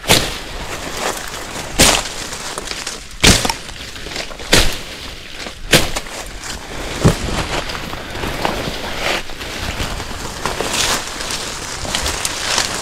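Dry brush and twigs snapping and leaf litter crunching as someone pushes through thick undergrowth on foot: six sharp snaps in the first seven seconds or so, then softer crunching and rustling.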